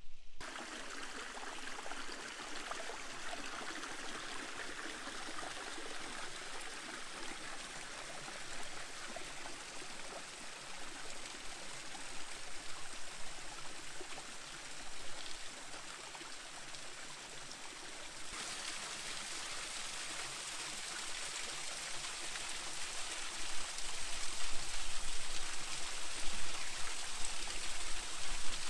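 A small waterfall trickling and splashing down a crevice between boulders, a steady rush of running water that gets louder in the last few seconds.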